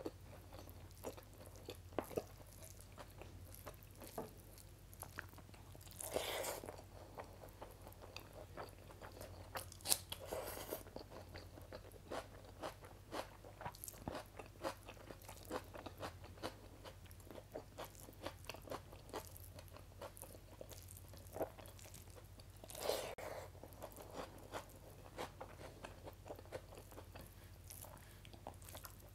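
Close-miked eating sounds: chewing of rice and kadhi curry, with frequent small wet clicks and smacks and a few louder, longer noisy sounds scattered through.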